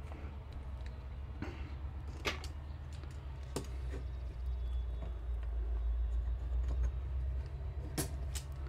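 A few sharp taps and knocks from a hand tool working against the wooden vent frame, over a steady low rumble.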